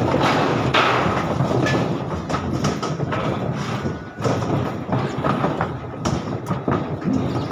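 Donkey hooves knocking and thudding irregularly on a wooden cleated ramp as several donkeys walk down it, over a steady background rumble.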